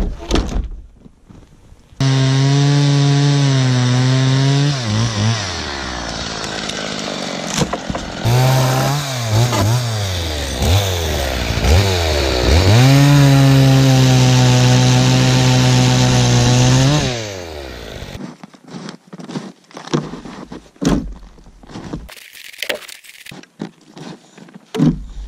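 Two-stroke gas chainsaw running at high revs, its pitch sagging and wavering as the chain cuts into a dry dead log, then climbing back and holding before it shuts off abruptly. Before and after it come scattered wooden knocks and clunks as the logs are handled.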